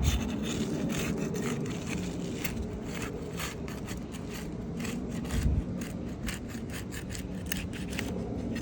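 Asphalt shingle tabs being pried and torn loose from their sealant strip: rough, irregular scraping and rasping strokes, with a dull bump about five seconds in.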